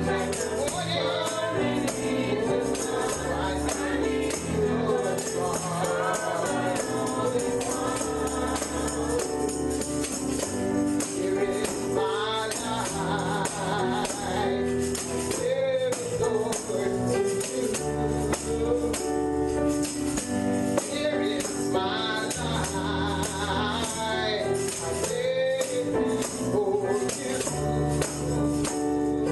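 Live gospel music with a tambourine shaking a steady beat, singing voices and a bass line.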